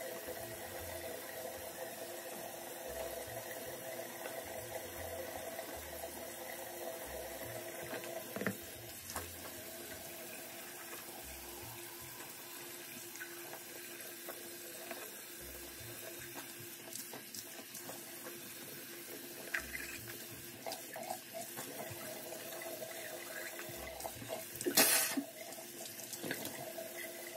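Bathroom tap running into the sink, a steady rush of water, with a brief louder noise near the end.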